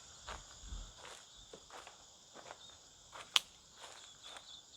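Footsteps crunching on leaf litter along a bush track, with insects buzzing steadily in a high band behind them. One sharp snap stands out about three and a half seconds in.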